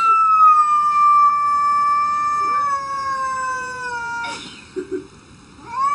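Domestic cat giving one long, drawn-out yowl that slowly falls in pitch for about four seconds, then a short rising cry near the end, an alarmed yowl at a costumed figure outside the glass door.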